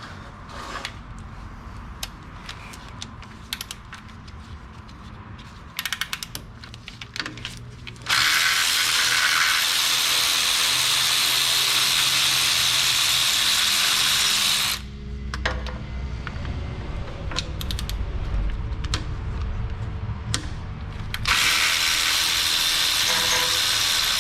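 Electric ratchet spinning in two long runs, one of about seven seconds and one of about three, as it backs out the starter's 13 mm mounting bolts. Ratchet clicks and small tool clatter come before and between the runs.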